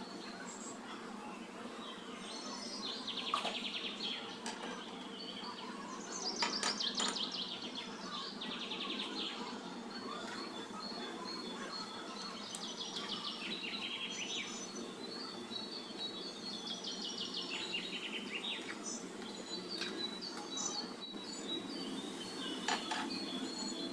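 Small birds chirping and trilling over and over, in quick falling runs, over a steady low hum, with a few sharp metal clinks from the steel ladle and pan.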